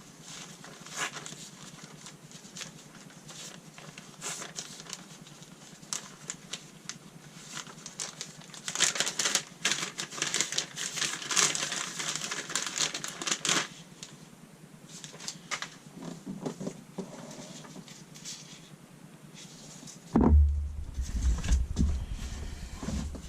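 Rubber pedal pads being worked onto car pedals by hand: irregular clicking, crinkling and scraping, busiest for a few seconds in the middle, with a heavier bump and rumble near the end.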